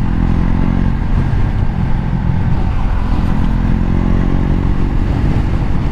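KTM Duke motorcycle's single-cylinder engine running steadily while riding along. Its note sags slightly midway and picks up again.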